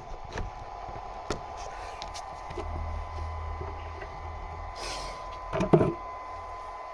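Equipment being handled and moved: a few light knocks, with a louder double knock near the end, over a faint steady high-pitched whine.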